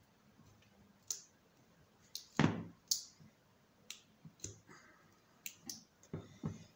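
Scattered plastic clicks and taps of an opened smartphone's battery and frame under fingers being pressed and pried at, about ten in all, with a louder knock about two and a half seconds in and a short scrape near five seconds.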